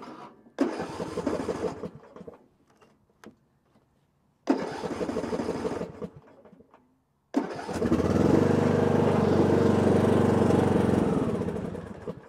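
John Deere 100-series riding mower engine being turned over on its electric starter: two short bursts of cranking, then a third try on which it catches and runs for about four seconds before dying out. The engine won't stay running, which the owner suspects is a fuel problem, either something in the fuel tank or a failing fuel pump.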